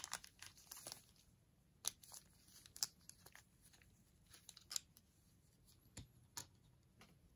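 A plastic tap case handled with gloved fingers: a series of sharp clicks and light scrapes as the clear plastic sleeve slides off and the tap is taken out.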